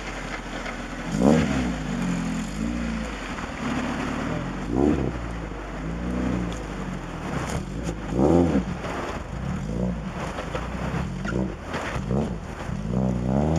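Lada Niva's engine pulling under load, its revs rising and falling back in several surges, the strongest about a second in, near five seconds, around eight seconds and near the end.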